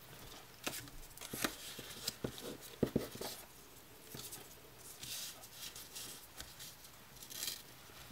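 Faint handling sounds of a striped ribbon being wrapped around a small paper envelope: short swishes of ribbon and paper rubbing, with scattered light taps and clicks.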